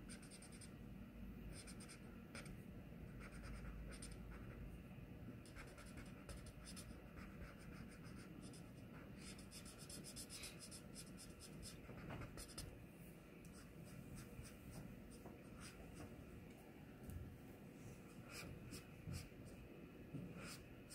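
Faint scratchy strokes of a felt-tip alcohol marker on sketchbook paper, short strokes in quick runs, as a second coat of the same colour is laid on for shading.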